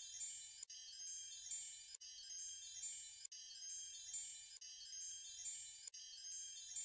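Chime soundtrack: many high chime tones ringing together, a short loop that repeats about every second and a third with a brief break between repeats.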